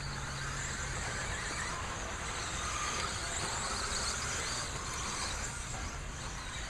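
Stock-class electric RC stadium trucks racing on the track, their motors and tyres making a steady high-pitched noise.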